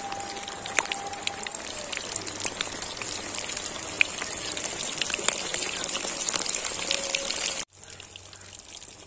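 Marinated quail pieces deep-frying in hot mustard oil in a wok, a steady sizzle full of small crackling pops. Near the end the sizzle cuts off suddenly, leaving a much quieter background.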